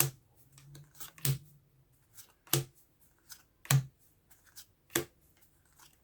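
Pokémon trading cards being flipped through one at a time, each card giving a sharp snap, about one every second and a quarter, with faint sliding rustles in between.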